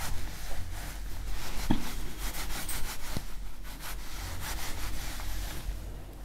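Rubbing and scraping handling noises with a couple of sharp knocks, as whiteboard markers are picked up and handled. A low hum runs underneath.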